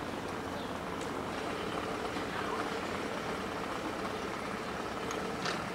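Small motorboat engines running slowly at low revs as the boats move through a lock, a steady low hum, with faint voices in the background. A short sharp knock near the end.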